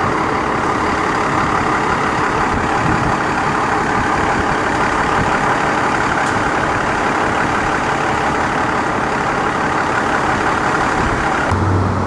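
Steady heavy street traffic with truck engines running close by. It cuts off suddenly near the end.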